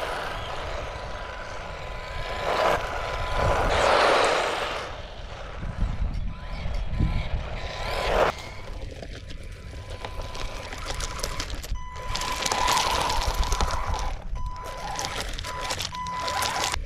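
ARRMA Typhon Grom 1/18-scale RC buggy with a 380 brushed motor, driven in bursts over gravelly pavement and loose rocks. Its motor runs with a thin steady whine that comes and goes, and its tyres scrabble on the stones in several surges.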